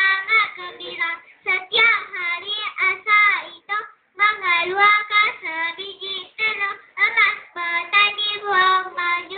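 A young girl singing solo without accompaniment, in short phrases with a few held notes and brief pauses between them.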